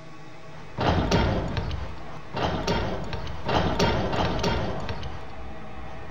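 Loud banging in irregular clusters, as of pounding on a door or wall: a first burst about a second in, more around the middle, and another near the end.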